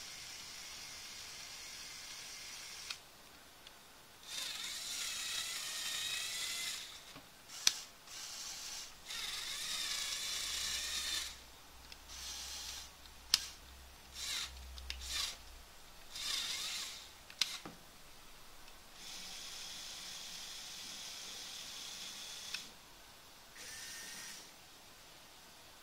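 Small LEGO Power Functions electric motors and Technic gears whining in short starts and stops, with three sharp clicks among them.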